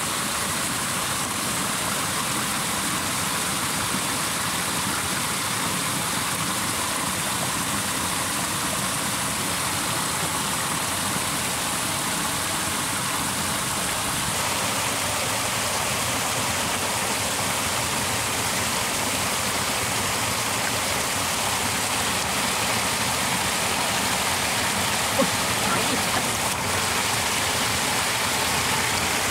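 Muddy water pouring steadily in several thin falls over an earth bank into a pool, an even rushing with no change in level. One short knock shortly before the end.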